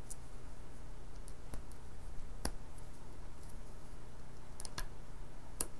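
A few scattered light clicks and taps of a plastic breadboard power-rail strip being handled between the fingers, over a low steady hum.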